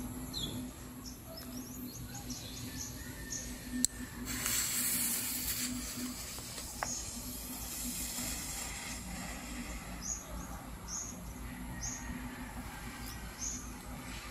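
Blue colour-smoke firework being set off: a sharp click about four seconds in, then a loud hiss as the fuse catches, fading over the next few seconds as it burns down. Small birds chirp now and then.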